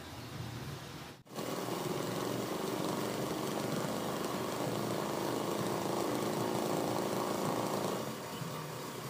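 Industrial sewing machine (TYPICAL brand) running steadily as it stitches a decorative embroidery line into white fabric. It starts abruptly about a second in and gets quieter near the end.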